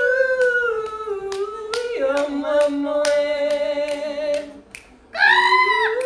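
Unaccompanied voices singing long held notes, trying to harmonize: one voice holds a note, a lower voice joins about two seconds in, and after a brief gap a loud, high, wavering note starts near the end. Occasional sharp clicks run through it.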